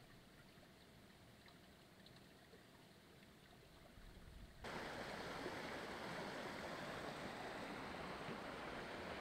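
Faint outdoor ambience with a few small ticks, then an abrupt cut about halfway through to the steady rush of a flowing stream.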